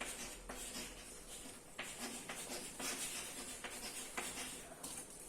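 Faint scratching and rubbing of handwriting: a pen moving in short, irregular strokes as a line of notes is written out.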